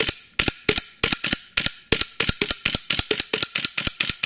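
KWC Desert Eagle .50AE gas blowback airsoft pistol firing a rapid string of sharp shots on green gas, each with the clack of the metal slide cycling. The shots come about five a second and crowd closer together toward the end.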